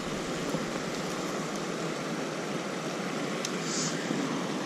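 Water pouring over a spillway weir into the pool below, a steady rushing, with a few faint clicks and a brief high hiss near the end.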